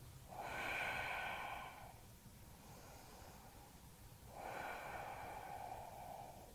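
A woman breathing audibly while holding downward dog in a yoga flow: two long, slow breaths, the first about half a second in and the second about four and a half seconds in.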